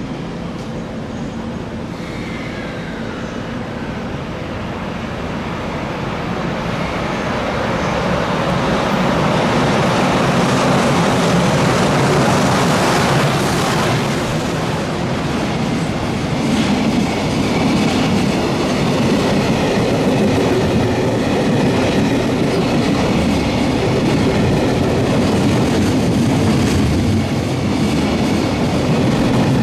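A freight train hauled by an EH500 electric locomotive running on the rails. The rolling rumble of wheels and wagons grows louder over the first ten seconds or so, then holds steady.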